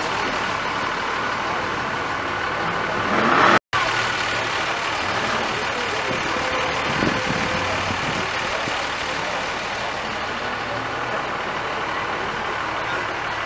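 Cars and trucks rolling slowly past with their engines running, over the murmur of a crowd. The sound swells and then cuts out for a moment about three and a half seconds in.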